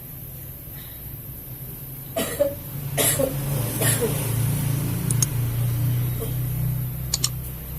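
A person coughing three times, about a second apart, over a low steady hum; the cough is the patient's own complaint, alongside shortness of breath.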